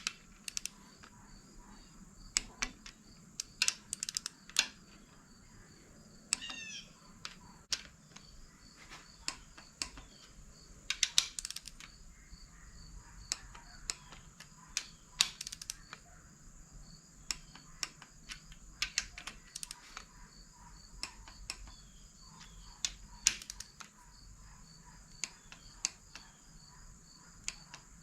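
Click-type torque wrench ratcheting and clicking as bolts are run down and torqued on a KA24DE cylinder head: irregular sharp clicks in short runs, pausing between bolts.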